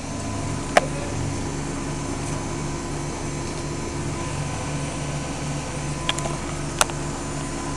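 Washing machine running: a steady mechanical hum with a low drone that pulses regularly, about two to three times a second. Two sharp clicks, one about a second in and one near the end.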